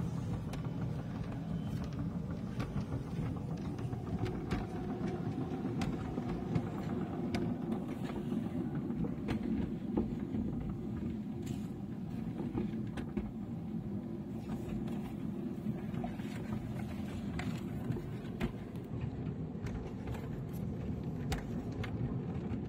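Small steel wheels of a 7 1/4-inch gauge miniature railway brake van running along the rails, heard from on board as a steady rumble with irregular ticks. The owner is unsure of the ticking but says it sounds like a wheel flat.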